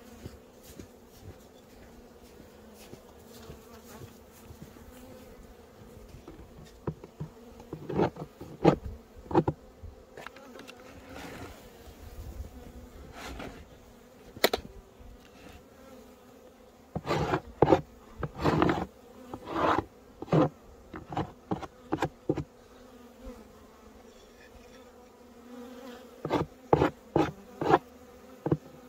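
Honeybees buzzing steadily around an opened-up hive entrance, with clusters of loud short noises about eight, eighteen and twenty-seven seconds in.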